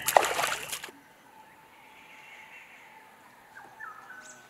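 Water splashing as a dhole rushes a spotted deer fawn in shallow water: a burst of loud splashes in the first second. After that it is quiet apart from a few faint, thin calls.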